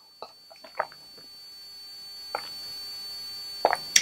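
A person drinking from a plastic cup: a few short soft gulps and swallows in the first second or so, and a couple more near the end, over a faint steady high whine.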